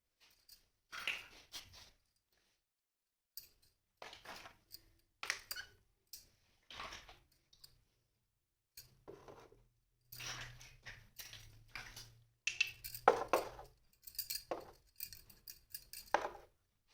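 Toy kitchen set pieces being handled and set down: irregular clinks, clicks and rustles with short pauses between, the busiest stretch coming in the second half.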